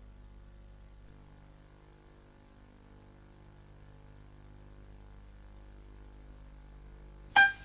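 Faint, steady mains hum, then near the end a single loud piano note struck, the start of a song's piano intro.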